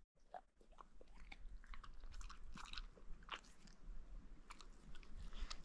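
Border collie eating chunks of dog food from a plate: faint, irregular crunching and chewing clicks.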